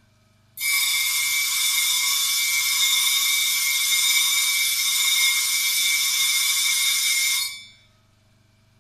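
A hair-clipper blade being ground flat against the spinning abrasive disc of a MASTER-JK blade sharpener: a loud, steady grinding hiss with a steady whistling tone in it. It starts suddenly about half a second in and dies away near the end as the blade is lifted off.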